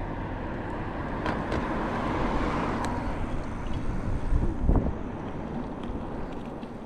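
A car passing by, its road noise swelling to a peak about two and a half seconds in and then fading. A brief low rumble follows a couple of seconds later.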